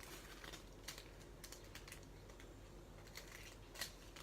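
Faint, irregular light clicks and taps from small diamond-painting supplies being handled, with one slightly sharper click near the end.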